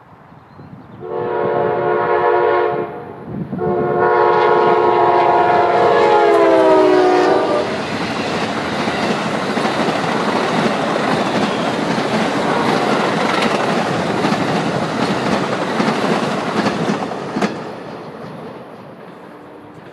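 Amtrak passenger train with double-deck Superliner cars passing close at speed: the locomotive horn sounds two blasts, the second long one dropping in pitch as the engine goes by. The cars then rush past with wheels clattering over the rail joints, and the sound fades as the train goes away near the end.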